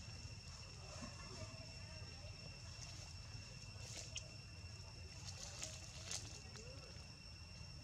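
Faint outdoor ambience among long-tailed macaques: soft scattered clicks and rustles, a few faint squeaky calls, over a steady high-pitched drone and a low rumble.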